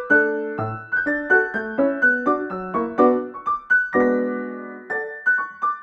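Background music: a light, bouncy piano tune of quick short notes, with one chord held for about a second near the end.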